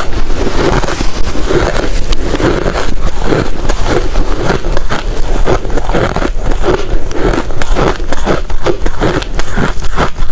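Loud, close-miked crunching of ice being chewed, one crisp bite after another without a break.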